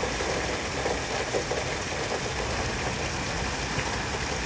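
Heavy thunderstorm rain, a steady even rushing noise with some low rumble beneath it.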